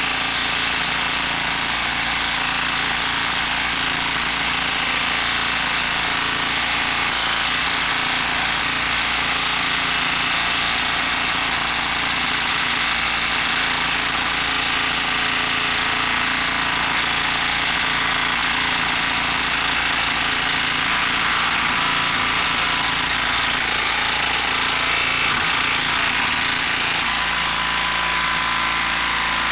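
Milwaukee M12 brushed 12-volt impact driver hammering steadily without a break as it drives a 4.5-inch lag screw into a log, its impact mechanism working under heavy load.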